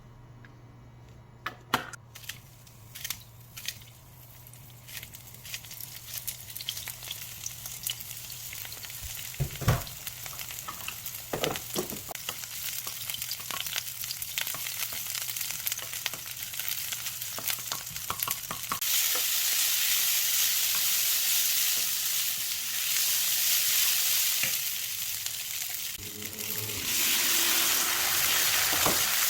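Food frying in a hot pan with the clicks and knocks of stirring, the sizzle growing and getting much louder about two-thirds of the way through, dropping briefly near the end and then returning.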